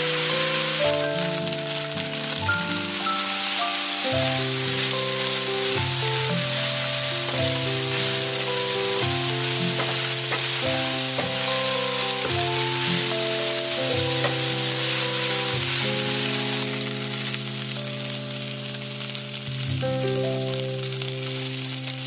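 Udon noodles and vegetables sizzling as they are stir-fried in a hot frying pan, with a steady hiss. Light instrumental background music plays over it.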